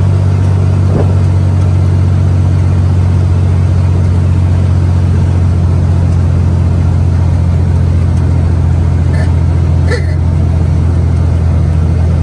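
Motor vehicle engine running at a steady speed while driving, a loud, even low drone with a few faint ticks near the end.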